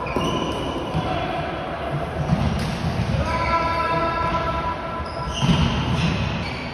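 Floorball play echoing in a large sports hall: shoes squeaking on the court floor, sticks and ball knocking, and players shouting. There are heavier knocks about two and a half and five and a half seconds in.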